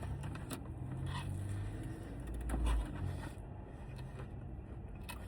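A person biting into and chewing a Hot Honey McCrispy fried chicken sandwich topped with crispy jalapeños, with faint crunching and crackling. There is a low thump a little past the middle.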